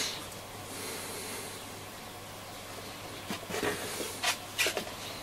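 Small hardware being handled and fitted into a wooden radio case: a soft hiss about a second in, then a quick run of light clicks and taps between about three and five seconds in, over a faint steady hum.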